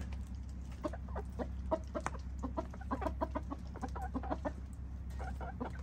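Asil chickens clucking in a quick run of short, repeated notes, with a few more clucks near the end. A steady low hum runs underneath.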